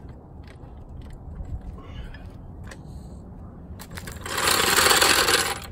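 Hydraulic floor jack being let down: a few faint clicks of the handle, then about four seconds in a loud hiss lasting about a second and a half as the release valve is opened and the car lowers.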